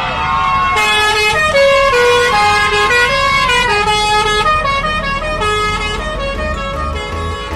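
A bus's multi-tone 'telolet' air horn playing a tune in quick stepped notes, over a low rumble.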